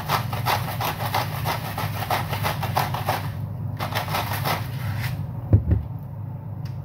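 Hand-twisted spice grinder grinding over a wok: rapid crunching clicks in two runs with a short pause between, over a steady low hum. A single low thump about five and a half seconds in.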